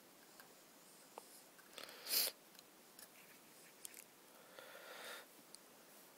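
Quiet handling of small plastic tubs, with faint scattered clicks and light knocks. A sniff through the nose comes about two seconds in, and a weaker breath near the end.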